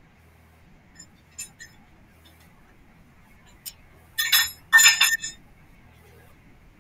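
Metal gym equipment on a home cable-pulley machine clinking: a few light clicks, then two loud ringing metallic clanks in quick succession about two-thirds of the way through.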